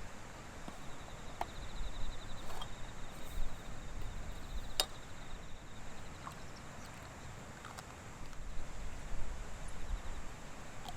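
Wind buffeting the microphone in gusts, with an insect trilling at a high pitch on and off and a few short chirps and one sharp click about five seconds in.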